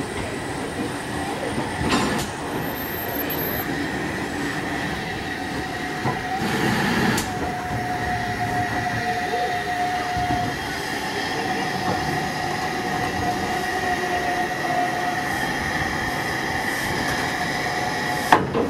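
Steam locomotive 30541, a Southern Railway Q class 0-6-0, rolling slowly tender-first, with a thin steady squeal from its wheels on the rails. Near the end comes a sharp knock as its buffers meet the coaches to couple up.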